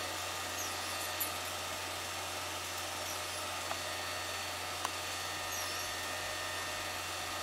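Home movie projector running: a steady whir from its motor, with a low hum, hiss and a few faint ticks.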